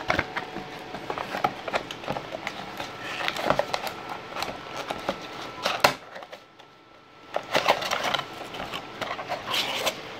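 Handling of packaging and a small device: irregular rustling and light knocks as items are set down and taken from a box, with a sharper knock about six seconds in followed by a brief lull.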